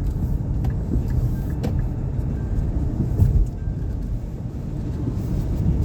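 Road and engine noise inside a moving Nissan Pathfinder's cabin: a steady low rumble, with a few faint clicks.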